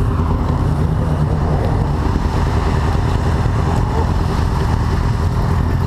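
Yamaha sport motorcycle's engine running steadily, with wind rushing over the microphone.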